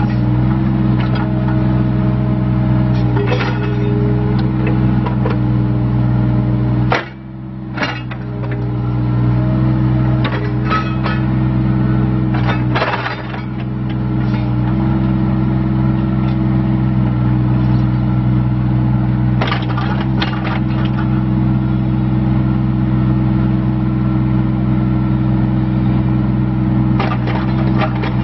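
Mini excavator's diesel engine running steadily while the boom, arm and bucket are worked, with scattered metallic clanks from the moving front attachment. The engine sound drops briefly twice, about a quarter of the way in and again near the middle.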